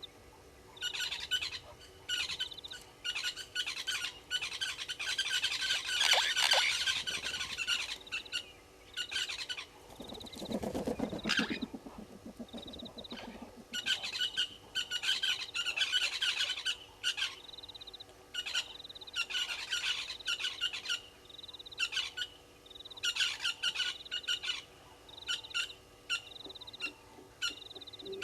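Wild birds calling, with repeated bursts of high chirping a second or two long coming every few seconds, and a short lower call about ten seconds in.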